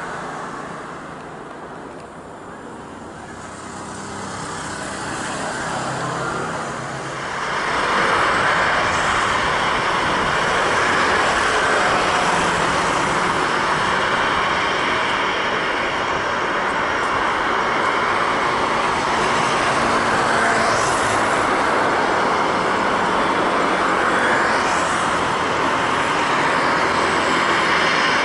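Airbus A330-300 jetliner with Rolls-Royce Trent 700 engines on landing approach: a loud, steady rush of jet engine noise that comes in suddenly about a quarter of the way in, with faint rising whines near the end. Before that, a quieter mix of distant engine noise.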